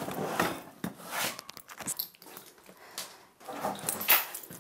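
Handling noise of a hard-sided suitcase being slid out from under a wooden cabinet and carried to a table: scraping and rustling, with a few knocks and a louder bump near the end.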